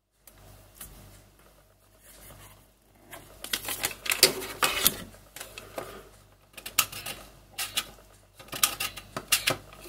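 Clicks and knocks of an Opus BT-C100 plastic battery charger and its cable being handled on a stone countertop. They come in quick, uneven clusters, first about three and a half seconds in and again through the last few seconds.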